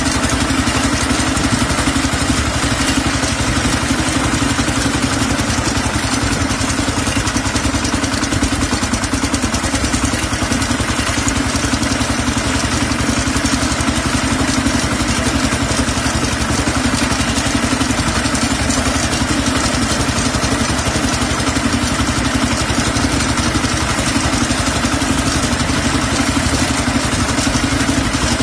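The single-cylinder diesel engine of a Kentavr MB 1010DE-6 heavy walk-behind tractor running steadily as the tractor drives along, with a rapid, even clatter.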